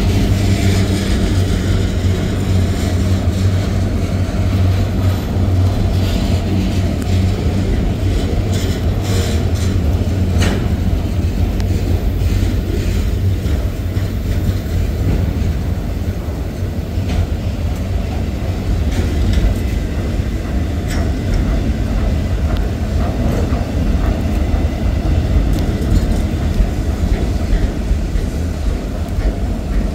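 Autorack freight cars of a Norfolk Southern manifest train rolling past close by: a steady low rumble of steel wheels on rail, with scattered clicks and knocks from the wheels and car connections.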